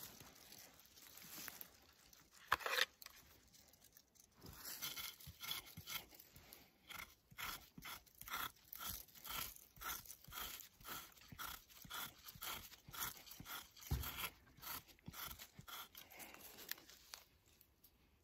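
Aurora Borealis Wolverine knife blade scraping down the stringy bark of a tree trunk in repeated strokes, about two a second, with a single knock partway through.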